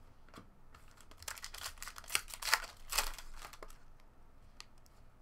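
A stack of trading cards being handled and flipped through by hand, a quick run of papery clicks and flicks of card stock, thickest in the middle.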